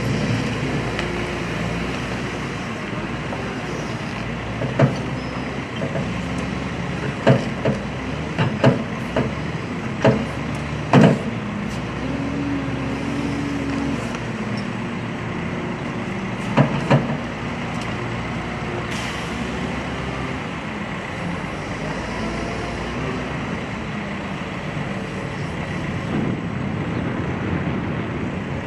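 Komatsu WA320 wheel loader's diesel engine running steadily as it works a pile of garbage debris, with a run of sharp clanks from the steel bucket striking debris and pavement in the first part and two more a little past the middle.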